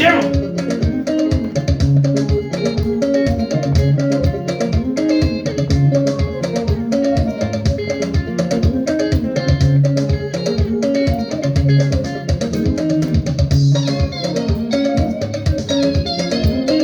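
Guitar-led music: plucked electric guitar lines over bass guitar with a steady, even beat.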